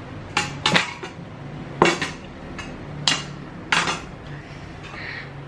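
Dishes being cleared: a small sauce dish set down into a stainless-steel bowl with a fork in it, giving about five sharp clanks and clinks in the first four seconds.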